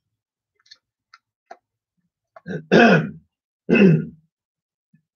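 A man clearing his throat twice, the first about two and a half seconds in and the second about a second later, after a few faint clicks.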